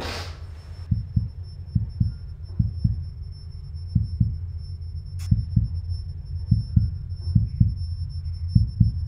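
Heartbeat sound effect: low thuds in pairs, about one pair a second, over a steady low hum. A whoosh fades out at the start, and a single sharp click comes about five seconds in.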